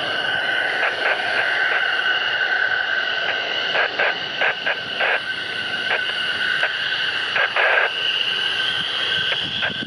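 F-15C fighter's twin Pratt & Whitney F100 turbofans whining at taxi power: a steady two-tone high whine over a rushing noise, with short irregular surges throughout.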